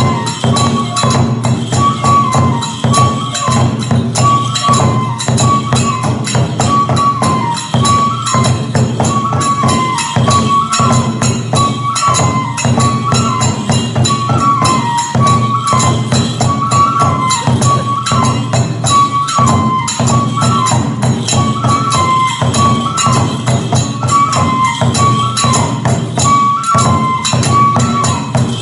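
Kagura festival music: a bamboo flute repeating a short phrase over a fast, steady beat of drum and small hand cymbals.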